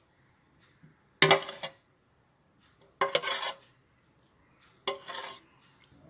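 Steel ladle clattering against a metal tray while spooning batter over a skewered potato: three short clatters, about two seconds apart.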